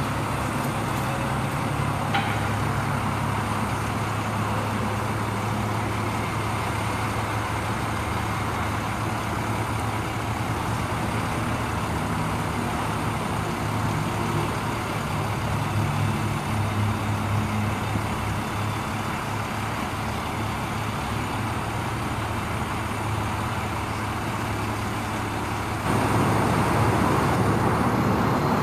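A Cummins 5.9-litre inline-six diesel in a 1998 Ford F800 bucket truck runs steadily, driving the hydraulics as the aerial boom is moved. Near the end it gets louder and rougher.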